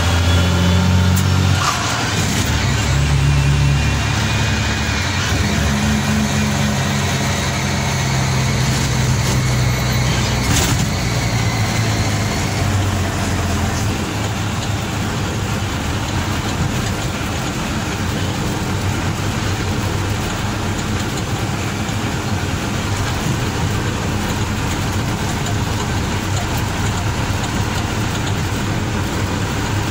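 Mack CH dump truck's diesel engine pulling a heavy load, heard inside the cab over road noise; its note shifts a few times in the first dozen seconds, then runs steady. A sharp click about eleven seconds in.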